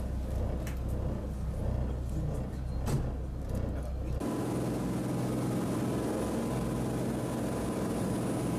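Ferry engine running with a low steady rumble, with a few faint clicks. About four seconds in it cuts to the ferry under way: a steady engine drone with an even rushing noise.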